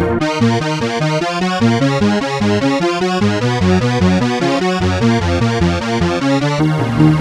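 Electronic synthesizer music: a quick run of short, stepping notes over a low bass line, switching to a different pattern about six and a half seconds in.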